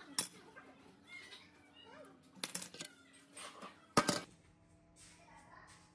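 Metal parts of a rusty spring scale being handled and set down on a steel diamond-plate workbench: a few scattered clinks and knocks, with the loudest sharp metal knock about four seconds in.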